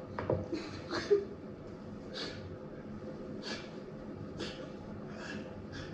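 A person breathing in short, sharp puffs through the nose, about one a second, with a faint click about a third of a second in.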